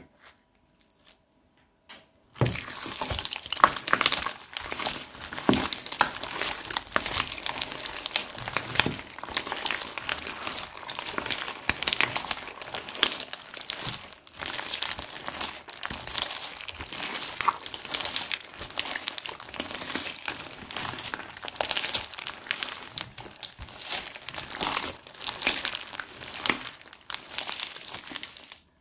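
Thick slime full of foam beads being kneaded and stretched by hand, making dense sticky crackling with small pops and crunches. It starts about two seconds in and carries on without a break.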